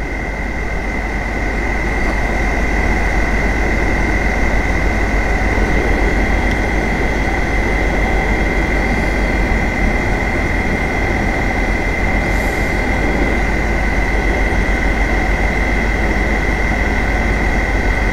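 Hot air rework station blowing through its nozzle: a steady rush of air with a steady high whine from its blower motor. It grows a little louder over the first couple of seconds. The hot air is reflowing solder paste to solder an SMD inductor onto its pads.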